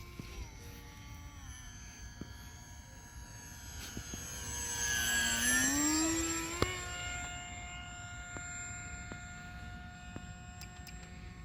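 HobbyZone AeroScout RC plane's electric motor and propeller whining in flight, the pitch stepping down with throttle early on. About halfway through it grows louder and shifts in pitch as the plane passes closer, then settles to a steady whine.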